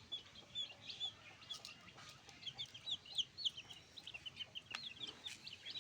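Backyard chickens calling: a busy stream of short, high peeping chirps from several birds at once, with a few faint clicks.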